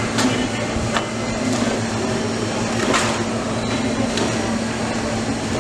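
Busy street ambience: a steady mechanical hum under a general background noise, with a few sharp clicks.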